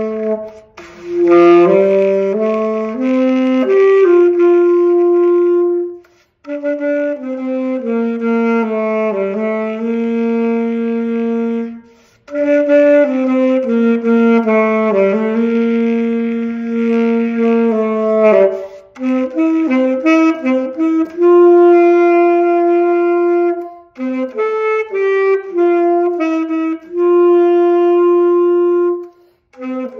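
Solo saxophone playing a slow melody in phrases of held notes, some long notes with a slight waver, with short breaks for breath between phrases.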